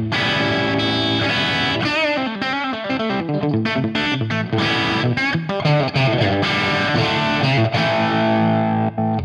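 Schecter Telecaster-style electric guitar with single-coil pickups, played through a Fractal Audio FM3 amp modeller on its crunchy 'Euro Blue' overdriven amp model. Chords mix with quick single-note runs about two to three seconds in, and it ends on held chords.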